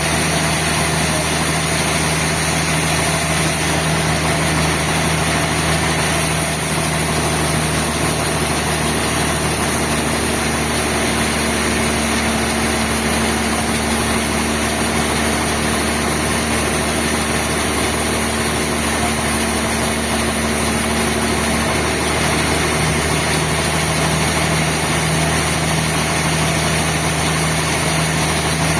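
Sawmill machinery running steadily with a loud, engine-like drone. Its hum steps up in pitch from about ten seconds in and drops back about twenty-two seconds in.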